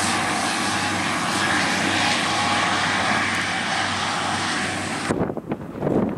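Airport runway sweeper trucks towing rotating brush units pass close by with a loud, steady rush of engine and brush noise. It cuts off suddenly about five seconds in, and after that there are a few gusts of wind on the microphone.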